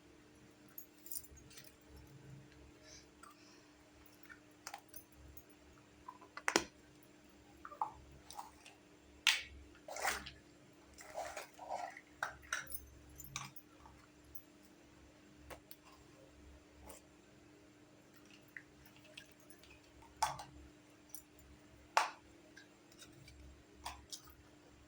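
Small plastic toy kitchen pieces being handled: scattered light clicks, taps and small knocks at an irregular pace, a few sharper ones, over a faint steady hum.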